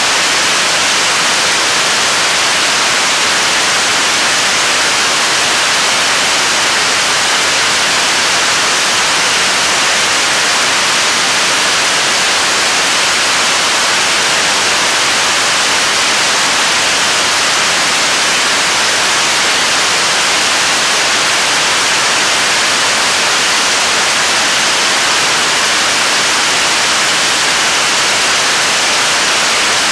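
KSLV-II third-stage 7-tonne-class liquid rocket engine firing at steady thrust in a long-duration hot-fire test: a loud, unbroken rush of noise, heavy in the highs like a hiss, that does not change.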